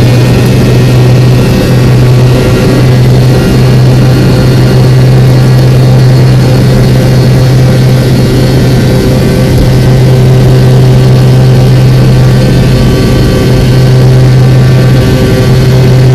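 Airliner engines at takeoff power: a loud, steady drone with a strong low hum and several steady higher tones over it.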